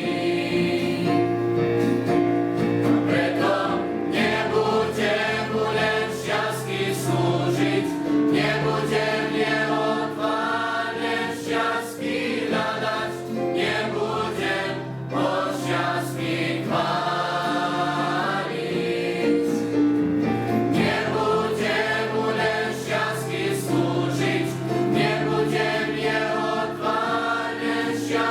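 Youth choir singing a Christian song in Slovak, several voices in harmony.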